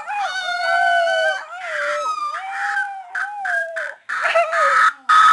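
Human voices screeching along to a song in high, wavering held notes, much like a howl, in several long phrases broken by short gaps.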